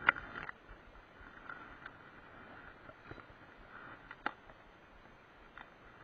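Close handling noise from a fishing rod and spinning reel: a sharp click right at the start and another about four seconds in, over a faint rustle.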